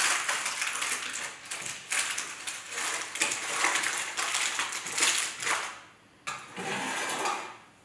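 Baking paper crinkling and rustling as a freshly baked loaf is lifted out of its tin by the paper, in an irregular stream that drops away briefly about six seconds in.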